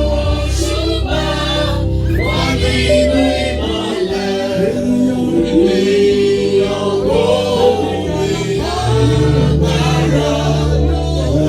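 Church choir singing gospel music over a sustained low bass accompaniment.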